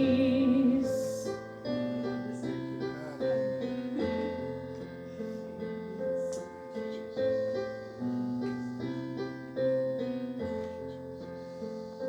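Instrumental interlude of a slow worship song on piano or keyboard, with chords struck and held and changing every second or two. A held sung note with vibrato fades out about a second in.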